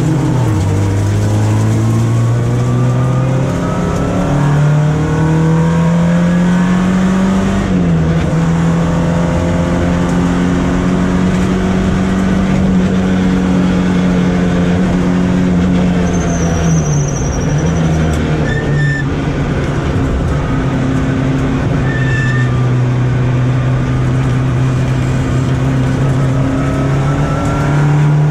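Volkswagen Golf Mk1's four-cylinder engine heard from inside the car, pulling hard with its pitch rising, then dropping sharply about a quarter of the way in and holding high and steady before falling again past the halfway point.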